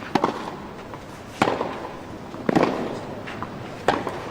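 Tennis ball struck by racquets in a rally: four sharp pops, about a second and a quarter apart, over a steady crowd murmur.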